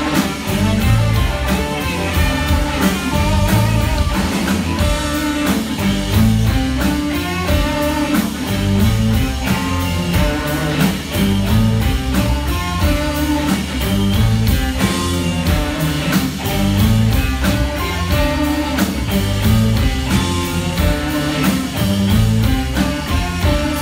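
A live blues-rock band plays with electric guitars, bass, keyboard and drum kit over a steady beat.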